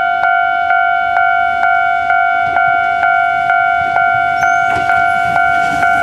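Japanese railway level-crossing warning bell ringing, a steady repeated clang about twice a second. Near the end the noise of the approaching Kintetsu limited express electric train begins to rise under it.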